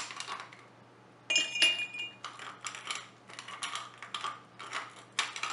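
Pieces of crushed ice clinking into a glass mug and rattling in a plastic cup as they are picked out by hand: one ringing glass clink about a second in, then a run of smaller clicks and clatters.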